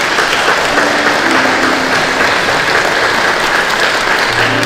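Audience applauding, a dense, steady round of clapping from a crowd.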